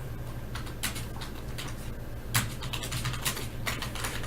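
Hockey trading cards being flipped and slid through by hand: a string of light, irregular clicks and rustles, with a sharper snap about two and a half seconds in, over a steady low hum.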